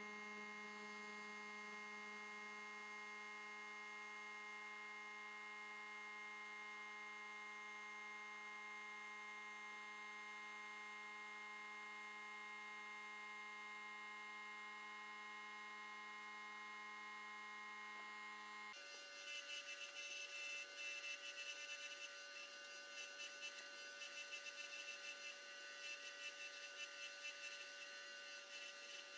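Faint, steady electrical hum made of several fixed tones. About nineteen seconds in it switches abruptly to a different, higher steady whine with a fluttering hiss above it.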